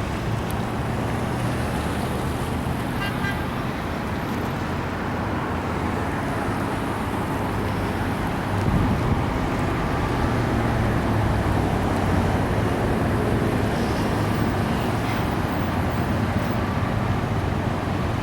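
Tow trucks driving past in a procession: steady engine and road noise, getting louder about halfway through as nearer trucks pass.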